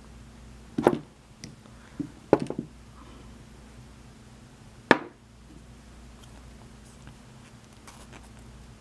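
A few short, sharp clicks and taps of small metal lock parts, pins and springs of a Schlage lock cylinder, being handled and set down during disassembly, with a faint steady hum underneath.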